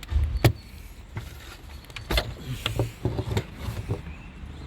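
Toyota Avensis engine running low and steady with its turbocharger failed, with a few sharp knocks over it, the loudest about half a second and about two seconds in.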